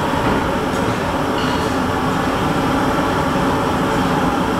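Industrial gas burners running with a steady, loud rushing noise as they bake iron frying-pan bodies red-hot, the heat treatment that forms the pans' blackened oxide film.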